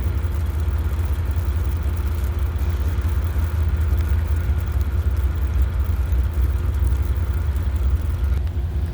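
Amtrak Empire Service diesel locomotive running steadily at the station, with a low rumble and a steady hum.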